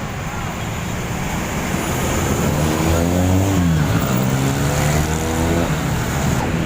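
Large bus engine pulling away close by under steady street traffic noise; its note climbs, drops sharply about halfway through as it changes gear, then climbs again.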